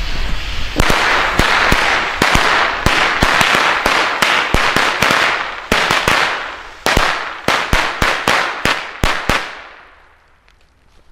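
Weco Pyrocracker firecracker mat going off: a fast, irregular string of sharp bangs, several a second, over a crackling hiss. It starts about a second in and stops near the end.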